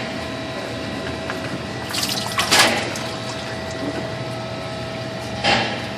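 Engine oil running and splashing out of a loosened spin-on oil filter, a steady pour with louder surges about two seconds in and near the end.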